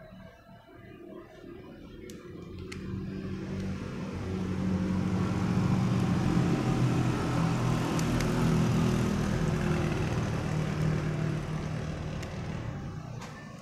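A motor vehicle passing by: its engine hum swells over a few seconds, holds, then fades away near the end. A few small sharp clicks of a screwdriver working the casing of a vape pod mod sit on top.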